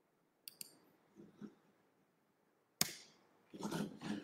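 A few sharp clicks and taps from working a computer, mouse clicks and key presses, in a quiet room.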